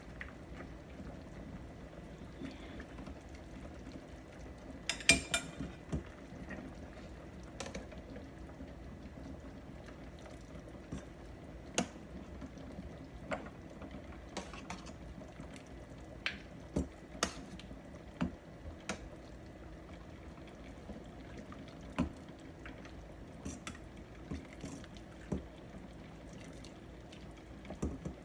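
A metal ladle clinking and scraping against a stainless steel stockpot as beef soup is ladled into a ceramic bowl, with pouring and splashing broth. Sharp clinks come every second or two, the loudest few about five seconds in, over a steady low hum.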